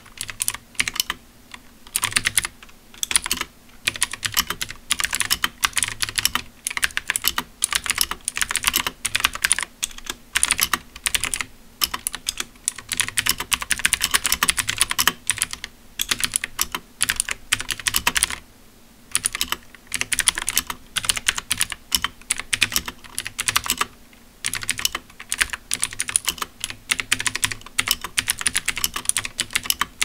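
Fast typing on an SPC Gear GK540 Magna mechanical keyboard with clicky Kailh Blue switches and a one-layer tape mod: a dense stream of sharp key clicks in runs of a few seconds, broken now and then by brief pauses.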